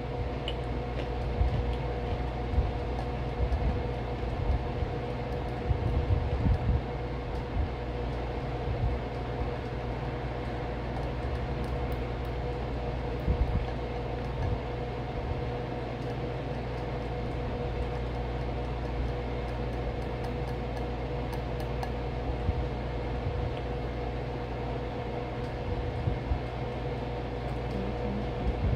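A steady mechanical hum with two steady tones in it, broken now and then by short soft knocks and faint clicks.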